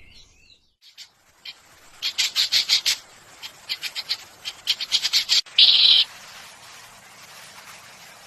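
A bird calling in quick runs of short, high chirps, several in a row, two to three seconds in and again around four to five seconds, ending with one louder, harsher note near six seconds.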